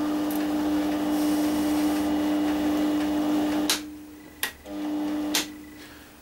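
GMD 400 mini metal lathe running with a steady motor hum while its carriage travels along the leadscrew. A little over halfway through it stops with a sharp click, gives another click, runs again briefly and stops with a further click.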